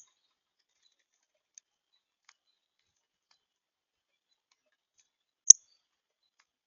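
Sharp, isolated ticks over a near-silent background: one loud tick about five and a half seconds in, with a few faint ones scattered between.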